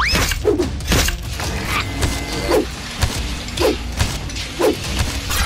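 Cartoon sound effects of a crawler crane's machinery working: short mechanical clanks and creaks repeating about once a second, over background music with a steady bass.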